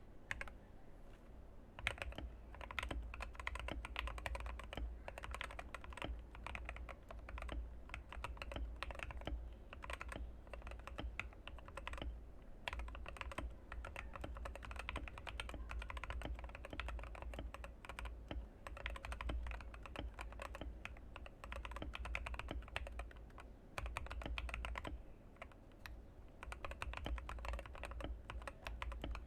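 Typing on a TM680 mechanical keyboard with factory-lubed, filmed Gateron Pro Yellow linear switches, in a foamed, tape-modded case with lubed plate-mounted stabilizers. A fast, continuous patter of keystrokes starts about two seconds in, with a couple of brief lulls, over a steady low hum.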